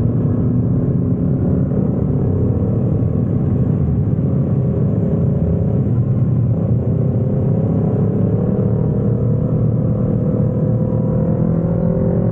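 Motorbike engine running steadily under a low rumble, its note rising slowly in the second half.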